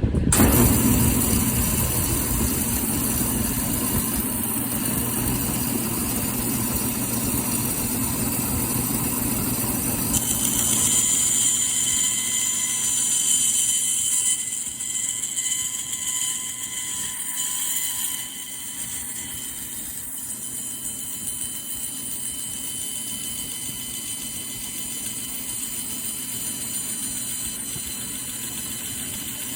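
Bandsaw running steadily with a constant machine hum. A louder high hiss joins from about ten to eighteen seconds in, then the running settles slightly quieter.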